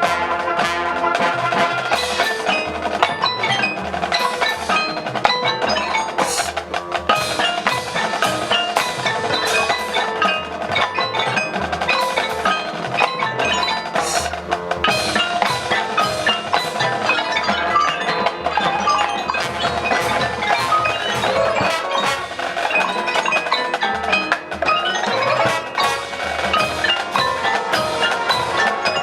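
High school marching band playing a field show, with the front ensemble's mallet percussion and drums prominent: a dense run of quick struck notes over sustained band tones.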